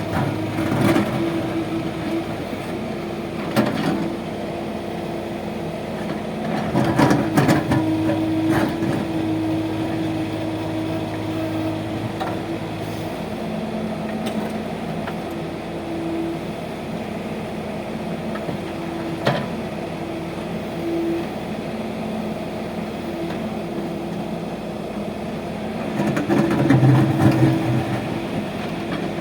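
JCB backhoe loader's diesel engine running steadily while digging, its pitch shifting with load, with occasional sharp knocks from the digging in rocky soil. The engine is loudest about seven seconds in and again near the end.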